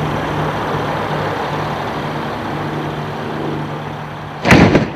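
A steady low engine-like hum, then about four and a half seconds in a sudden loud blast lasting about half a second: roughly 35 fluid ounces of butane vapour igniting inside a small plywood test shed.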